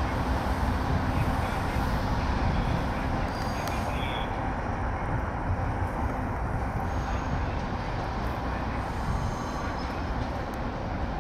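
Taiwan Railways DRC1000 diesel railcar (two-car set) departing at low speed: steady diesel engine running with the rumble of wheels on rail, easing slightly as it moves on.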